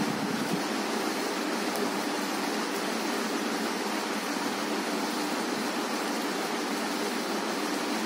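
A steady, even hiss of background noise that does not change.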